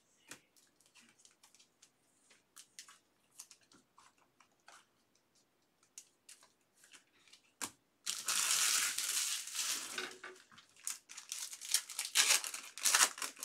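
Cards handled with faint scattered ticks and slides, then a foil trading-card pack wrapper torn open and crinkled loudly, in two spells starting about eight and eleven seconds in.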